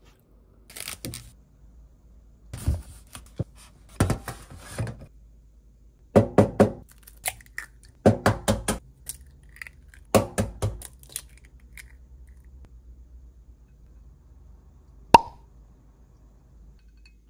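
Eggs being cracked into a glass measuring cup: several bursts of quick sharp knocks as shells are tapped on a hard edge and broken open. One sharp glass clink comes near the end.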